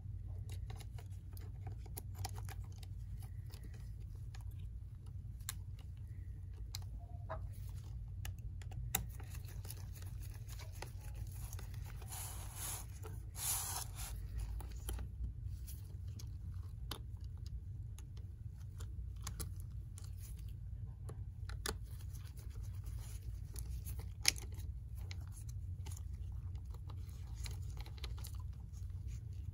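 Scattered small clicks, taps and rustles of gloved hands and a small screwdriver working inside an open MacBook Air, with a longer scratchy rustle about twelve to fourteen seconds in, over a steady low hum.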